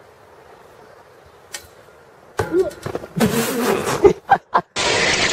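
Faint outdoor hush, then from about halfway people yelling and laughing, broken by several sharp, loud knocks. Near the end it cuts abruptly to a steady, loud run of engine noise.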